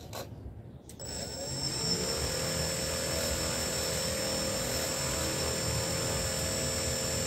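Small electric RC motor driving an air propeller: it starts about a second in, its whine rising as it spins up, then runs at a steady speed with a high whine over a low hum.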